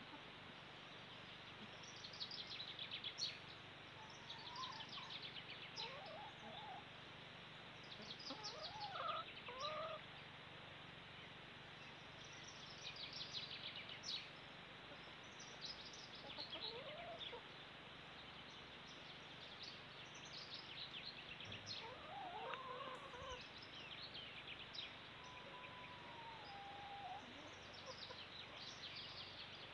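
Faint birdsong from several small birds: short, high, rapid trills repeated every few seconds, mixed with lower whistled calls and one longer whistle near the end, over a steady low background hum.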